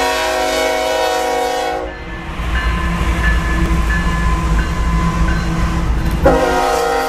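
Diesel locomotive air horn sounding: one long blast that stops about two seconds in, and a second blast starting near the end, with the low rumble of the moving train between them.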